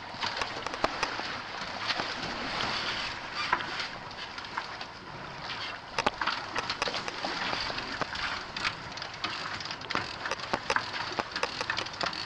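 Steady rush of wind and water aboard a sailboat under way, with frequent short clicks and knocks from lines, hardware and gear being handled on deck.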